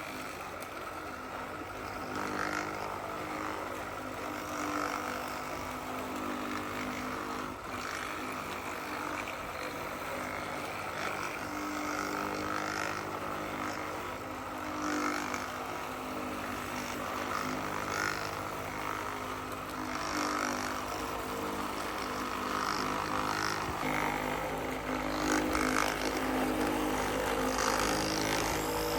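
Radio-controlled model construction vehicles running: a steady motor hum whose tones shift up and down as they move.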